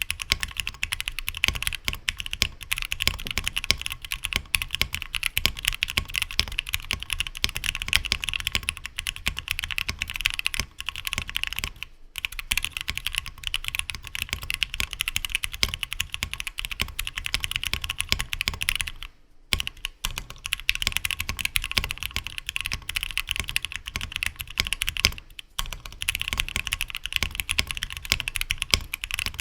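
Typing on a custom 60% mechanical keyboard: a Tofu60 case, o-ring gasket-mounted, with Gateron Black Ink linear switches lubed with Krytox 205g0 on a 3D-printed PLA plate, and PBT keycaps. A dense, continuous run of keystrokes, with brief pauses about twelve, nineteen and twenty-five seconds in.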